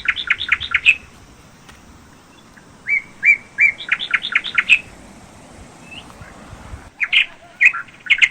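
A songbird singing close by: a short phrase of a few spaced notes that quickens into a fast run of about seven notes, sung twice, with a few more notes near the end.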